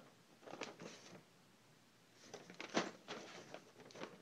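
Faint rustling and crinkling of packing paper being handled, in two spells, with the sharpest crackle near the middle of the second.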